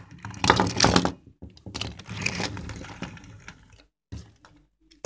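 Hard plastic toy figures handled, knocked together and moved across a tabletop: a dense run of clicks and clatter for the first few seconds, then scattered single clicks.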